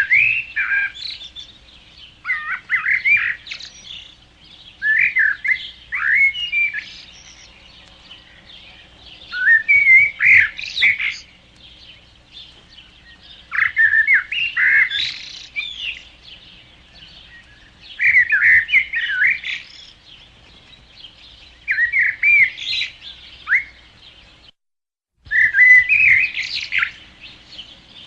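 Songbirds whistling in short warbled phrases, one every three to four seconds, over a faint steady background. The sound cuts out completely for under a second near the end.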